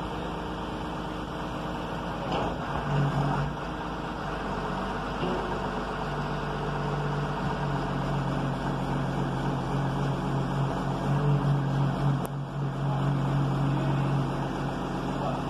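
Caterpillar tracked hydraulic excavator's diesel engine running while the boom and bucket dig into a pile of soil, a steady low drone swelling in about three seconds in and again from about six seconds until near the end as the hydraulics work. A single sharp click about twelve seconds in.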